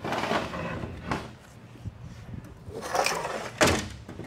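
Ford 4R70W automatic transmission case and its oil filter being handled on a workbench: scraping and rubbing of metal parts, with a sharper knock about three and a half seconds in.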